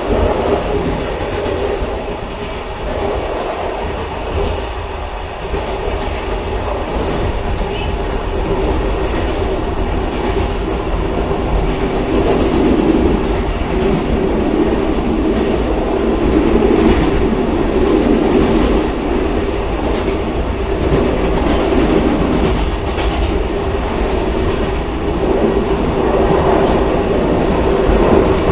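Railcar running along the track: a continuous rumble with a steady drone, growing a little louder about twelve seconds in.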